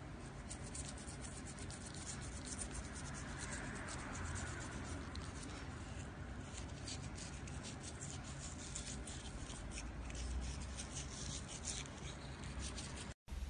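A soft toothbrush scrubbing a cat's teeth: quick, irregular, scratchy bristle strokes.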